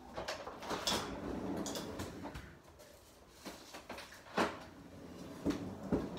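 Kitchen fridge-freezer being opened and an item pushed in among its contents: rustling and shuffling for the first two seconds, then a few separate knocks and clicks, the sharpest about four and a half seconds in.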